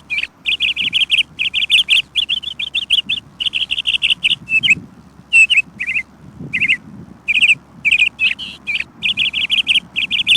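Birds chirping: quick runs of high, repeated notes, one burst after another with short gaps between.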